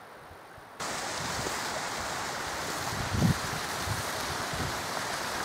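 Rushing water of a fast hill stream (beck), a steady hiss that cuts in suddenly about a second in. A few low thumps sound over it, the loudest near the middle.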